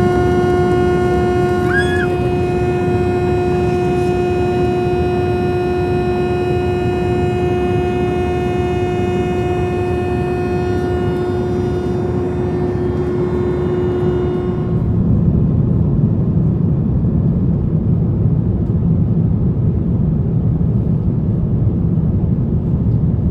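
Airbus A350-900 cabin: a loud, steady, single-pitched drone sounds over the constant rumble of engine and airflow noise and cuts off suddenly about fifteen seconds in, leaving only the rumble. This is the weird loud noise heard in the back cabin.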